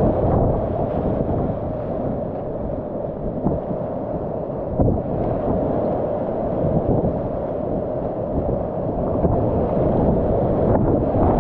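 Whitewater rapids rushing and crashing around a kayak running them, a loud, steady, dull rumble with water breaking over the boat's bow.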